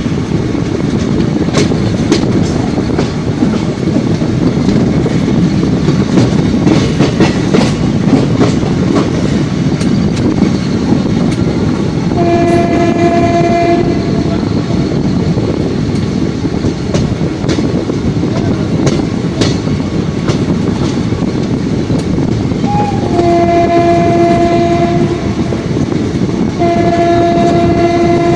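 Indian Railways train running at speed, heard from aboard: a steady loud rumble of wheels on rail with clicks over rail joints, and the locomotive horn sounding three times, the last blast held on past the end.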